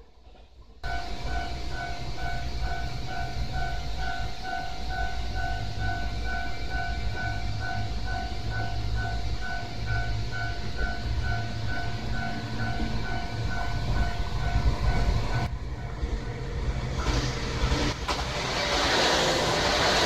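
Japanese level-crossing warning bell ringing in a fast, steady two-tone pulse over a low rumble; it stops about three-quarters of the way through. Then the noise of a diesel limited-express train builds loudly as it reaches the crossing.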